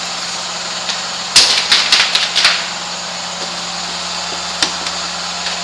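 Steady machine hum with a quick run of sharp clicks and knocks about a second in and one more knock a few seconds later, typical of laundry being handled at a tumble dryer's door.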